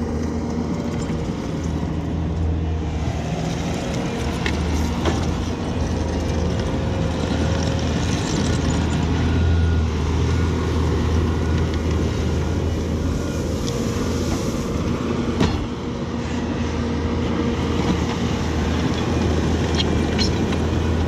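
Diesel engine of a piece of heavy earthmoving equipment running steadily under work, with a few light knocks or clanks.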